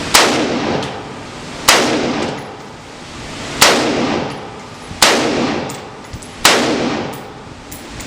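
Five single gunshots fired at a measured pace, one every one and a half to two seconds, each followed by a long echoing decay. It is a five-shot group fired while sighting in an optic.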